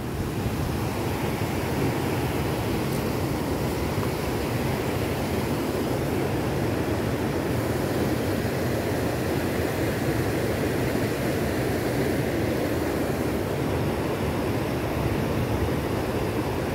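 Steady rushing of flowing river water, downstream of a weir.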